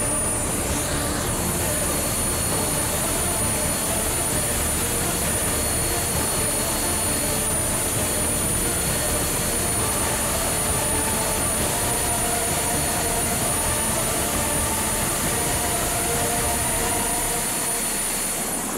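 Helicopter turbine engine and rotor running: a steady, dense rushing noise with a thin high-pitched whine held throughout.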